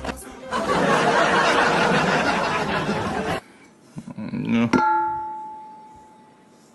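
A loud, even hiss-like noise that lasts about three seconds and cuts off suddenly, then a click and a single bell-like chime that rings out and fades over about two seconds.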